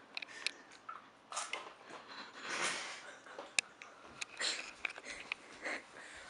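Handling noise from a handheld camcorder being swung around: irregular short rustles and a few sharp clicks.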